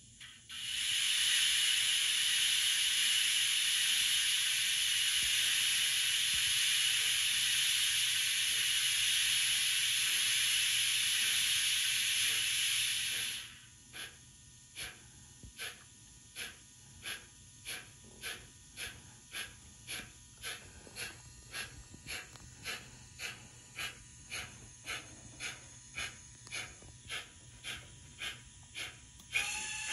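DCC sound decoder in an EKR Adams 415 radial tank model steam locomotive playing a loud steady steam hiss, which cuts off after about thirteen seconds. The engine then starts puffing, at first about one and a half chuffs a second and gradually quickening to nearly three. A whistle begins at the very end.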